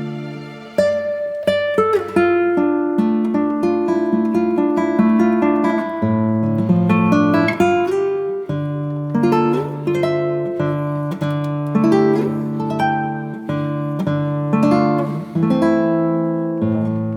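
Background music: an acoustic guitar picking a melody over bass notes, a steady run of plucked notes.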